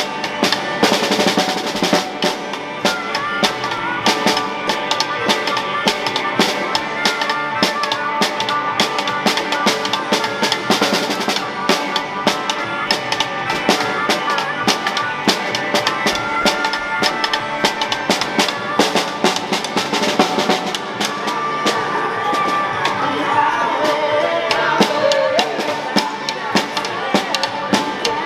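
Background music with a steady drum-kit beat and a melody over it.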